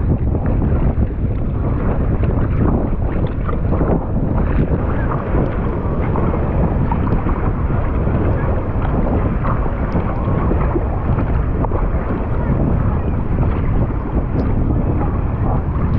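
Steady wind noise buffeting a GoPro action camera's microphone, heaviest in the low rumble.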